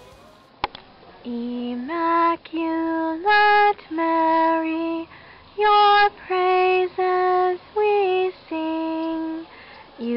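A solo female voice singing unaccompanied, in long steadily held notes with short breaks between them. A single sharp click comes just before the singing begins.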